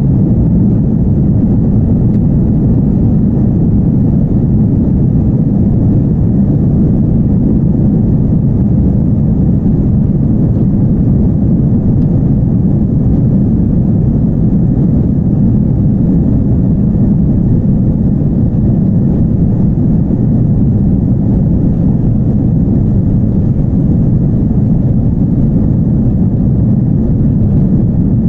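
Steady low rumble of an airliner's jet engines and airframe, heard inside the passenger cabin as the plane rolls along the runway for takeoff.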